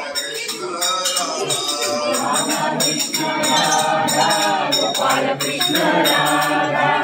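Music: voices singing a song over a steady beat of jingling hand percussion.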